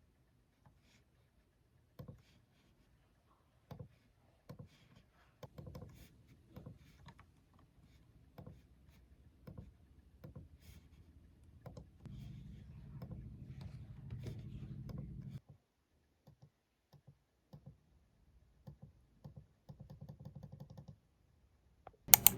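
Faint, scattered clicks and taps about once a second, with a low steady hum for a few seconds in the middle and one sharp, loud click near the end.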